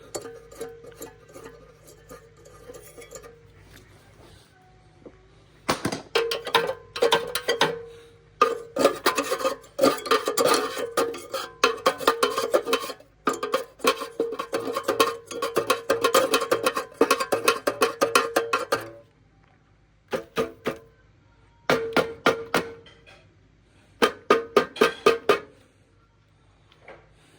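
Rapid metallic clattering and tapping with a ringing tone, from metal being worked by hand. It comes in spells several seconds long, with short pauses between.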